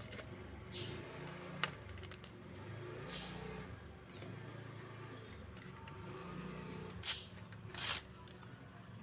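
Handling noises from unboxing small accessories: a sharp click about a second and a half in, then two louder short scraping bursts near the end, over a low steady hum.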